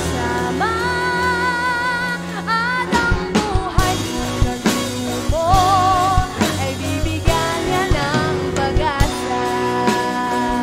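A live band playing a worship song: a woman sings long, wavering held notes over keyboard, bass guitar, acoustic and electric guitars, and a drum kit keeping a steady beat.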